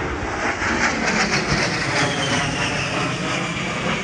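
Jet noise from an A-10 Thunderbolt II's twin TF34 turbofan engines during a low flyby: a loud, rushing roar with a high whine that falls in pitch over the last couple of seconds as the jet passes and pulls away.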